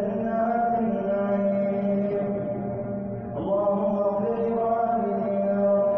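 A man's voice chanting an Arabic supplication (dua) of the Taraweeh prayer, drawing out long held notes in a slow melody. There is a short dip about three seconds in before the next phrase starts.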